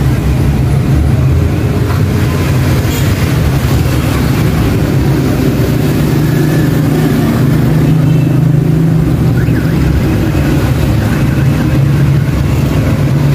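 A steady, loud low hum without a break.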